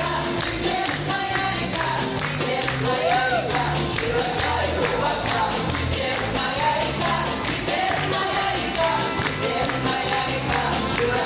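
Worship music: singing over a band with a steady, regular bass line.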